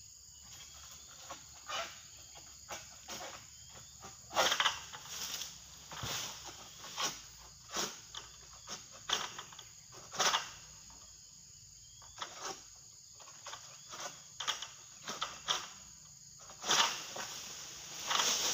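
A long-pole sickle cutting at an oil palm's crown: irregular scraping, rustling strokes about once a second, over a steady high insect drone.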